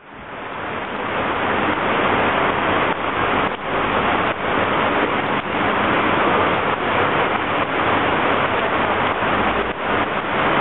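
Heavy cloudburst rain pouring onto a paved sidewalk: a steady, dense hiss that fades in over the first couple of seconds, with faint scattered taps.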